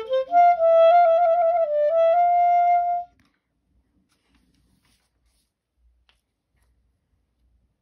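Solo oboe playing a phrase of quick stepping notes that settles on a held note and stops about three seconds in, followed by near silence with a couple of faint ticks.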